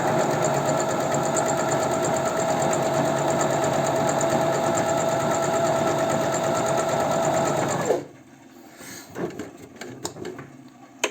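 Janome 509 household electric sewing machine running steadily as it stitches a test seam at a new thread tension setting, then stopping suddenly about eight seconds in. A few faint clicks and one sharp click near the end follow.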